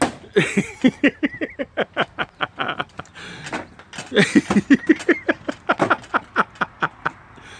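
A person laughing in two bouts of quick, pitched ha-ha pulses, about four or five a second, with a short break between them.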